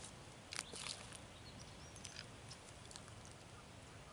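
Quiet pondside ambience with faint bird chirps, and two or three sharp clicks a little over half a second in.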